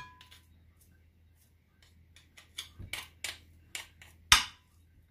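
Metal garlic press and spoon clicking and clinking together and against the bowl as crushed garlic is scraped off the press. A string of short, sharp clicks starts about two and a half seconds in, and the loudest comes near the end.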